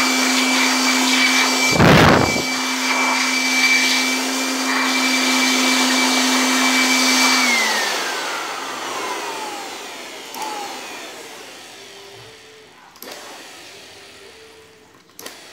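Electric air blower running steadily with a motor hum and a high whine over rushing air, with one brief loud burst about two seconds in. About seven and a half seconds in it is switched off: the whine and hum fall in pitch as the motor spins down and the air noise fades, leaving a few faint clicks.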